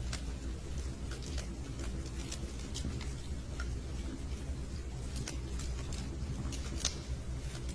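Log fire crackling in a fireplace: irregular sharp pops and snaps over a low steady rumble.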